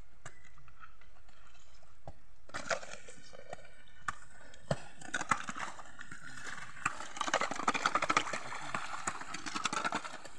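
Hoes scraping and dragging wet mud through puddle water on a dirt road: a run of scrapes, splashes and knocks that starts about two and a half seconds in and gets busier near the end.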